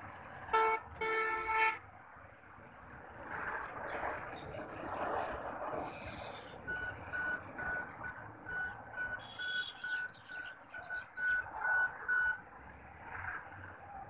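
A horn sounds twice, a short blast then a longer one, about half a second in. Later an electronic beep at one pitch repeats evenly, between two and three times a second, for about six seconds, over a steady background noise.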